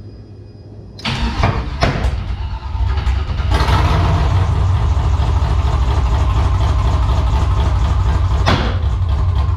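LS-swapped V8 engine in a 1984 Oldsmobile Cutlass cranking with a few sharp pops, then catching about three seconds in and running roughly with constant popping, before cutting out at the end. It is a first start on a new Holley Terminator X EFI setup that isn't dialed in, and the owner says something's not happy.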